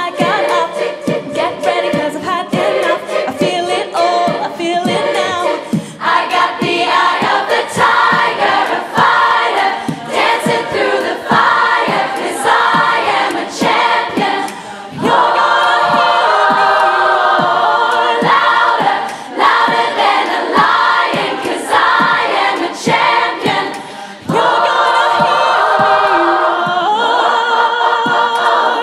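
Large girls' a cappella choir singing in harmony behind female soloists on microphones, over a steady percussive beat. The choir holds long sustained chords twice in the second half.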